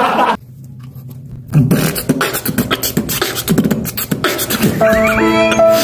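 Beatboxing: a human voice making fast mouth-percussion, low kick-like thumps and sharp clicks, starting about a second and a half in after a brief hush. Near the end, steady held tones join the beat.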